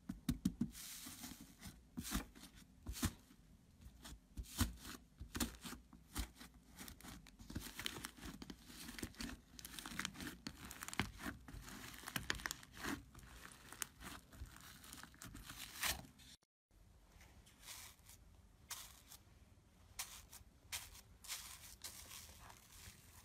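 Hands poking, squeezing and pulling apart thick foamy slime in a plastic tub, making a stream of irregular crackles, pops and tearing sounds. About sixteen seconds in the sound breaks off briefly. It resumes with a different pink foamy slime being pressed by hand, with the same crackling a little quieter.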